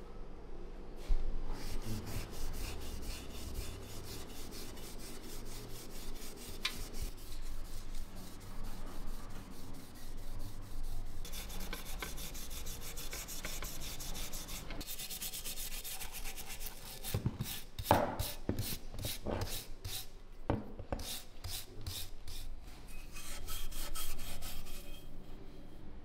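Steel wool scrubbing the wet, rusty steel barrel and receiver of a K98 Mauser rifle in quick back-and-forth strokes, rubbing off the oxide loosened by boiling. The strokes come slower and more separate in the second half.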